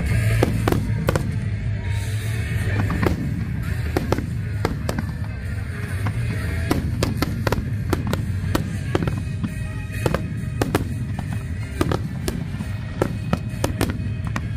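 Aerial fireworks going off in quick succession: many sharp cracks and bangs over a continuous low rumble, coming thicker in the second half.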